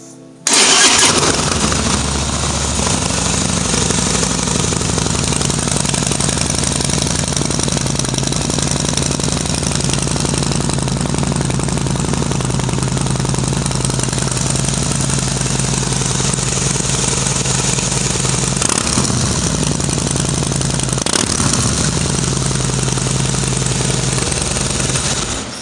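Harley-Davidson Fat Boy's V-twin engine through a Vance & Hines exhaust, starting about half a second in with a loud catch and then idling steadily with a deep, lumpy note. The pitch briefly wavers twice about three-quarters of the way through, and the sound cuts off at the end.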